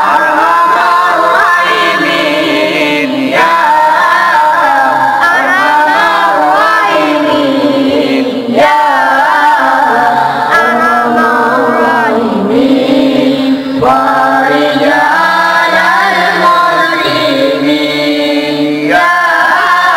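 Boys singing an Islamic devotional song into handheld microphones without instruments, in long, ornamented phrases with short breaths between them.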